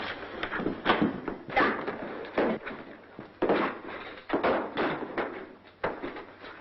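A scuffle: a rapid, irregular run of heavy thuds, knocks and slams, about a dozen in a few seconds.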